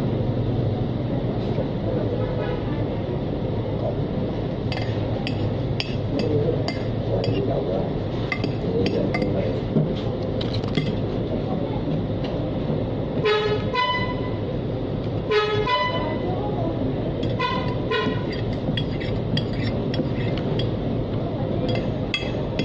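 Steady traffic rumble with a few short vehicle horn toots past the middle, over light clinks of plate and cutlery as someone eats.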